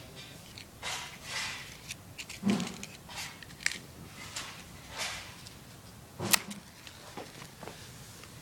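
Small pocket lighter being flicked again and again, irregular scratchy strikes with handling rustle and one sharp click about six seconds in, before it catches.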